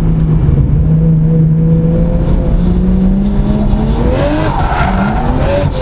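Tuned 500 bhp Nissan Skyline's engine heard from inside the cabin, holding a steady note, then revving up and down about three seconds in. With the revving comes a hissing rush of tyre noise, the tyres scrubbing as the car is drifted.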